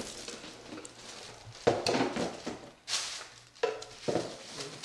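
Cardboard doll box and its plastic packing being handled: a few short bumps and rustles, the loudest about a second and a half in.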